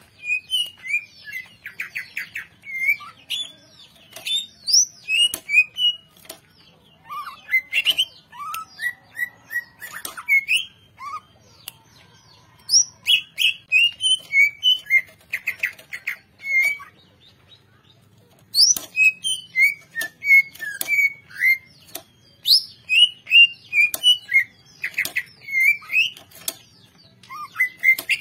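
Caged cucak ijo (green leafbird) singing steadily: a fast, varied run of short whistled notes, chattering trills and sharp clicks, in phrases broken by short pauses.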